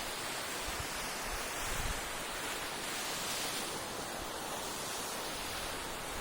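Sea waves washing onto a beach: a steady rushing hiss that slowly swells and eases, with wind gusting on the microphone as a low rumble.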